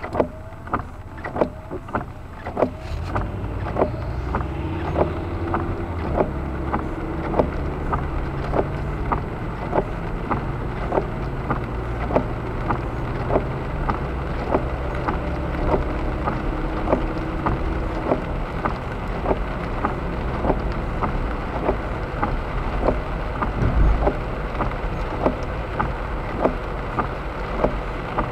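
Car driving on a wet road, heard from inside the cabin: tyre and road noise that grows a few seconds in as the car speeds up, with a sharp, regular click about every two-thirds of a second. A single low thump comes near the end.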